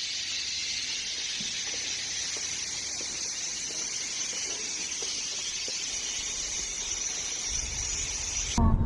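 A steady, high-pitched chorus of insects, which cuts off suddenly near the end.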